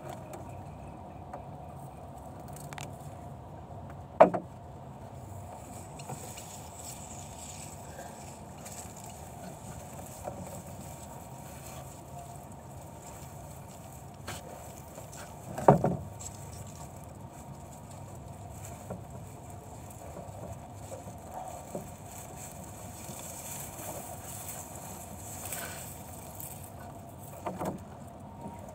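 Sharp knocks and bumps in a small fibreglass boat while a gill net is gathered aboard, two loud ones about four and sixteen seconds in and a few lighter ones near the end, over a steady low background hum.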